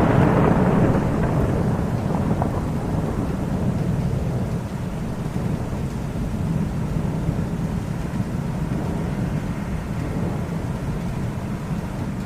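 Thunder: one long rolling rumble, loudest at the start, easing off slowly and fading out near the end.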